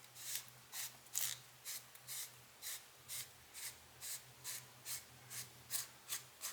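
Fingers twisting the front retaining ring of a Nikkor-P.C 85mm f/2 lens off its threads, giving faint, even rubbing strokes about twice a second.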